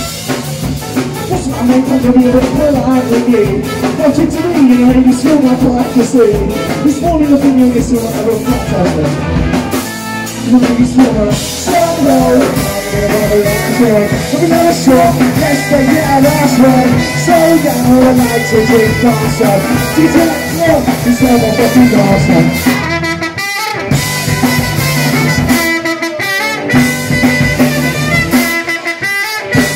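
Live band playing loudly on drum kit and electric guitars with a singing voice over the top. In the last several seconds the music breaks off in a few sudden, short stops.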